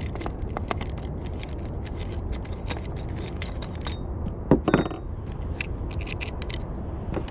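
Small metallic clicks and scrapes of hands and a tool working a wheel off an RC stadium truck, with a louder double knock about four and a half seconds in.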